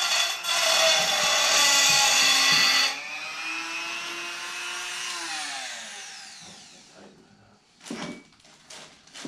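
Handheld power tool running loudly with a harsh grinding noise for about three seconds, then running on more quietly. It is switched off about five seconds in and its motor winds down, falling in pitch. A couple of short knocks follow near the end.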